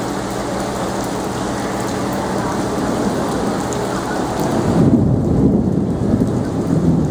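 Steady heavy rain falling on flooded street water. About five seconds in, a low rumble swells up and grows louder.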